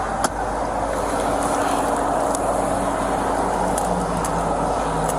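Steady road and engine noise inside a moving car, with one sharp click shortly after the start.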